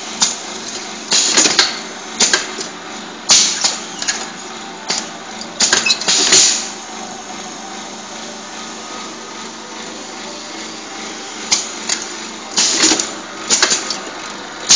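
Pneumatic bottle-filling machine at work: short hisses and clunks from its air cylinders and valves in quick clusters, over a steady machine hum. There is a pause of several seconds in the middle before another run of hisses and clunks.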